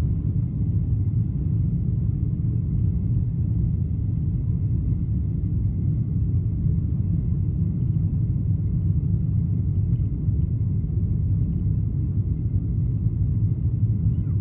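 Boeing 777 cabin noise in the initial climb after takeoff: the engines and airflow make a steady low rumble, with a faint steady high tone above it.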